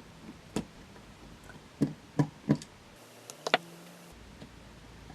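Small screwdriver and screws clicking and knocking against the Roland Fantom XR's casing while the four screen-mounting screws are being taken out: about six or seven short, sharp clicks at uneven intervals.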